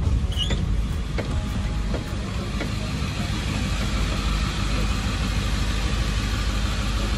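Converted 4x4 ambulance van's engine running, heard from inside the cab as a steady low rumble, with a few light clicks and a short high chirp in the first few seconds.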